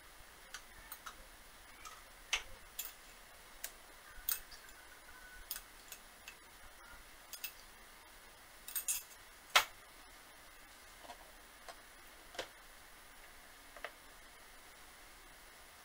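Scattered light clinks and taps of a metal spoon against a plastic canning funnel and glass jars, irregular and a few seconds apart, with a quick cluster and the sharpest clink about nine to ten seconds in.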